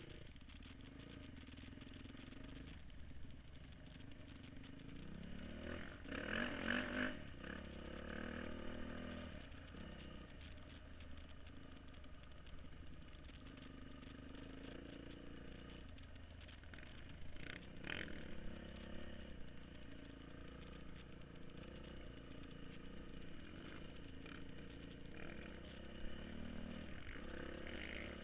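Off-road vehicle engine running while riding along a dirt trail, its pitch rising and falling with the throttle. A couple of louder noisy bursts come about a third of the way in and again past the middle.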